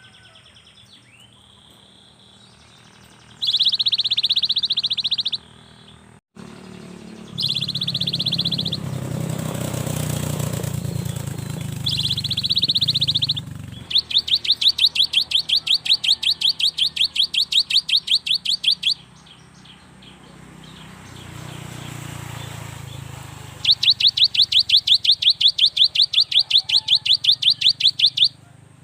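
Cinereous tit (gelatik batu) calling loudly: a few short bursts of sharp, high chattering notes, then two long rapid trills of about ten notes a second, one near the middle and one toward the end.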